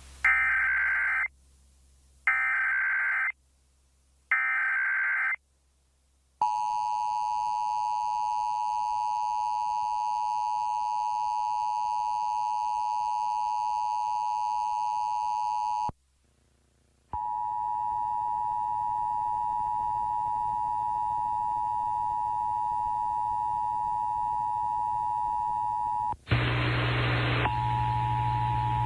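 Emergency Alert System test: three short screeching bursts of the digital SAME header, each about a second long, then the steady two-tone attention signal held for about ten seconds. After a second's break the steady tone returns, with a burst of louder hiss and hum near the end.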